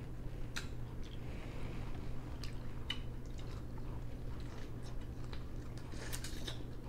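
Eating steamed blue crab: scattered small cracks and clicks of shell being opened and picked, with wet chewing, and a cluster of cracks near the end. A low steady hum runs underneath.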